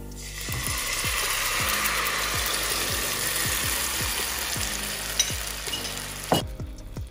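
Grated tomato purée hitting hot olive oil and fried garlic in a non-stick frying pan, sizzling loudly as it spreads, easing a little, then cutting off suddenly near the end. A soft background music beat runs underneath.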